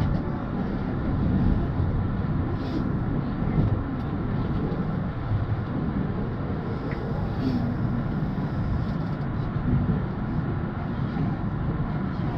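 Steady rumble of an electric commuter train's wheels and running gear, heard from just behind the driver's cab as the train slows into a station.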